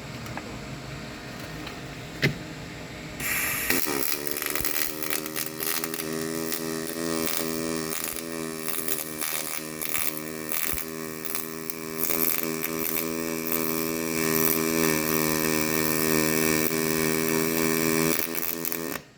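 HTP Pro Pulse MIG welder laying a pulse MIG weld on uncleaned, mill-scaled steel pipe. The arc strikes about three seconds in with crackling hiss and a steady pitched buzz, runs evenly, and cuts off suddenly just before the end. A single sharp click comes shortly before the arc starts.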